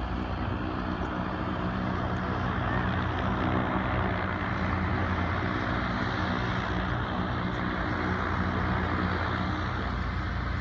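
Zeppelin NT airship's piston engines and propellers droning steadily as it flies low past, swelling slightly a few seconds in.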